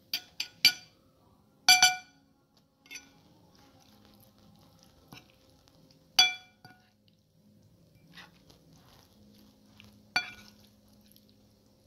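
Metal spoon clinking and scraping against a ceramic bowl while mixing a tuna salad. There are several sharp ringing clinks in the first two seconds, then single clinks about six and ten seconds in, with soft stirring between.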